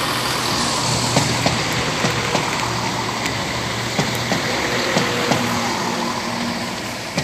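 CrossCountry Class 170 Turbostar diesel multiple unit running past at speed. Its underfloor diesel engine hums steadily, and the wheels click repeatedly over rail joints. The sound fades slowly near the end as the train draws away.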